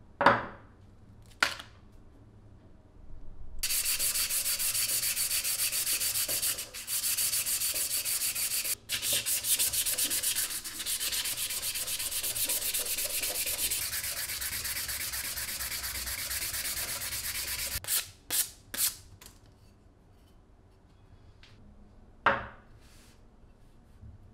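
Wooden tomahawk handle being hand-sanded with a small sanding pad: fast, even back-and-forth scratching strokes for about fourteen seconds. A few short knocks come before and after the sanding.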